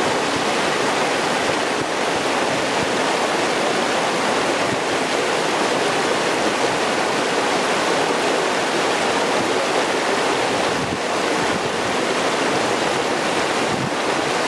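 Clear mountain stream rushing and murmuring over rocks, a steady even wash of water noise.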